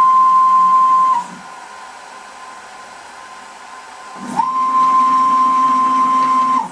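CNC router's stepper motors whining as the gantry jogs, in two moves. The pitch sweeps up to a steady tone as each move speeds up and drops as it stops. The first move ends about a second in; the second starts about four seconds in and stops near the end.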